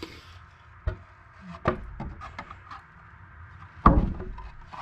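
A few sharp knocks, the loudest near the end, with faint handling noise between.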